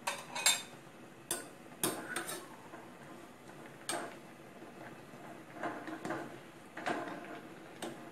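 Metal tongs knocking and clinking against an enamel pot while stirring glass noodles and vegetables in broth. There are about seven sharp taps at uneven intervals, with soft stirring and sloshing between them.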